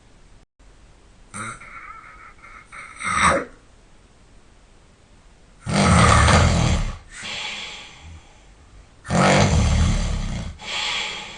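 A person snoring loudly in sleep: two loud snores about three and a half seconds apart, each followed by a quieter breath, after a couple of short snorts or breaths in the first few seconds.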